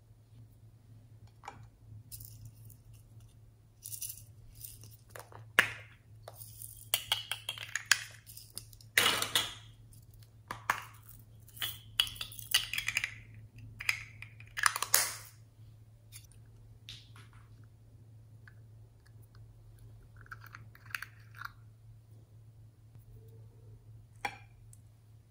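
Small plastic containers opened and shaken, sequins and glitter rattling and clicking as they are poured out onto slime in a glass bowl. The rattling comes in quick clusters, loudest in the first two-thirds, then thins to a few light taps. A faint steady hum lies underneath.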